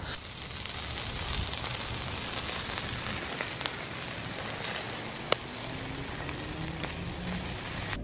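Meat skewers sizzling on a charcoal grill: a steady hiss with scattered crackles and one sharp pop about five seconds in.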